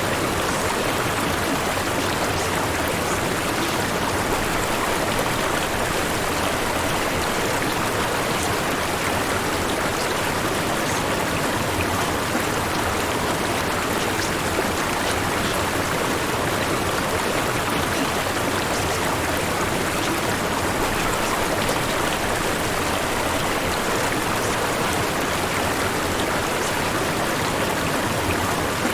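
Steady white-noise bed, an even rushing hiss that sounds like a flowing stream.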